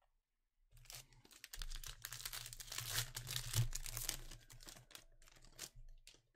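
Plastic-foil wrapper of a Panini Prizm Premier League trading-card pack being torn open and crinkled by hand. It makes a dense crackle that starts about a second in and fades out near the end.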